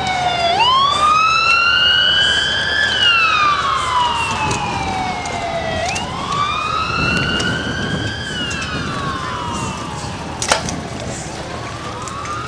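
An emergency-vehicle siren wailing, its pitch slowly sweeping up and down, each rise and fall taking a few seconds. Scattered clicks and one sharp knock come about ten seconds in.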